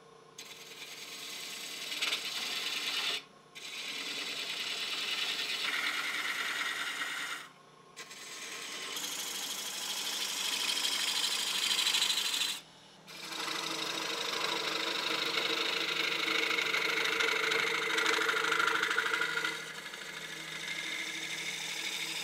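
Wood lathe running with sycamore being worked against the spinning piece: a hiss that comes in long passes and breaks off abruptly three times, over a steady motor hum that carries on through the breaks.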